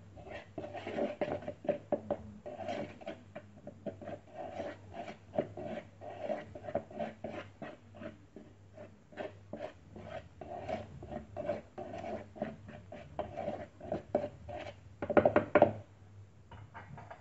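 A spoon stirring and scraping a dry mix of flour, cornstarch and spices around a mixing bowl, in quick repeated strokes. A burst of louder knocks comes near the end.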